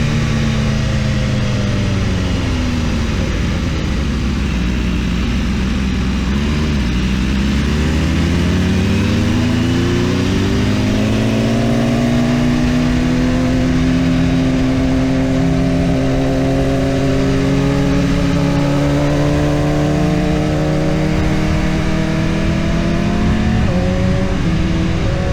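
BMW S1000RR inline-four engine running under way: its pitch falls as the bike slows over the first several seconds, climbs again as it accelerates, then holds a steady cruise, with a small step in pitch near the end like a gear change.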